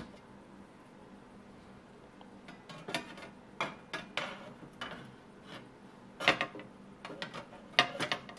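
Thin metal base plate clinking and clicking as it is lowered and seated in an analytical balance's weighing chamber, with scattered light taps and the loudest clanks about six and eight seconds in.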